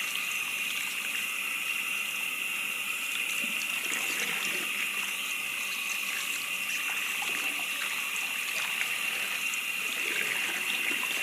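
Water running steadily from a tap into a sink, with faint splashing as a bundle of hair extensions is rinsed under it.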